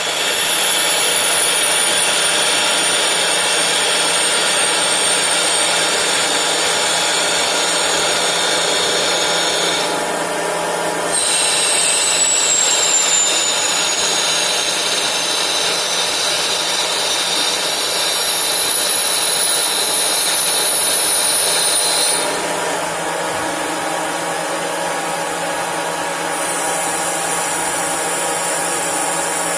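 CNC lathe boring the inside of a spinning workpiece: steady cutting and machine noise with a high whine that slowly falls in pitch. The cut pauses briefly about ten seconds in, then a second pass runs with another falling whine, and the machine runs a little quieter after about 22 seconds.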